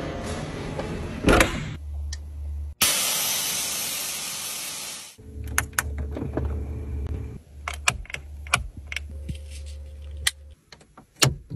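A string of close-miked Porsche Panamera Turbo detail sounds. First a steady electric motor hum at the rear spoiler, then a loud, even hiss for about two seconds, then another steady hum. The last few seconds are sharp clicks of centre-console buttons and key fob buttons.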